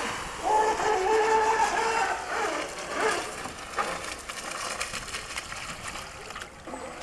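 Electric RC boat outboard, a 4S 3660 motor, whining as the boat runs back in after a hard run. Its pitch wavers in the first few seconds, then it fades into a fainter hiss toward the end.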